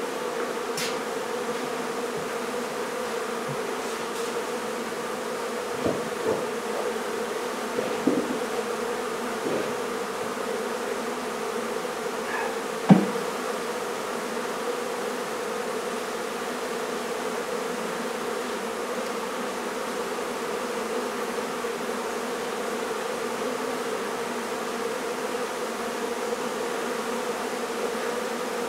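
Dense swarm of honey bees buzzing steadily with an even drone. A few light knocks sound now and then, with one sharper knock about 13 seconds in.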